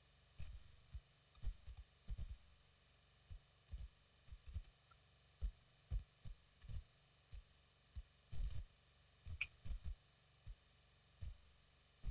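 Outdoor eagle-cam microphone picking up irregular low thumps, sometimes several a second, over a faint steady hiss, with one short high chirp about nine seconds in.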